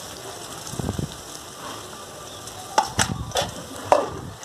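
Sliced onions sizzling in hot oil in an aluminium kadai, with a few sharp knocks of a spatula against the pan near the end.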